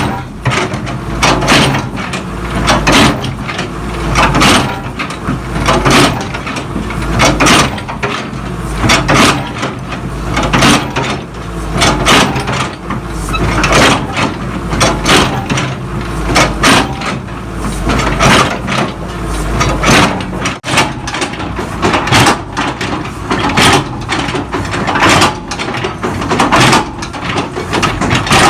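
Repeated heavy hammer blows on the steel bucket blade of a JCB excavator, about one to two a second, as it is knocked loose. A diesel engine runs underneath and its low drone drops away about twenty seconds in.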